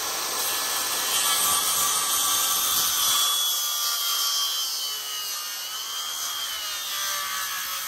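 Ridgid corded circular saw running and cutting through a 2x6 wood board, a steady high whine with the rasp of the blade in the wood.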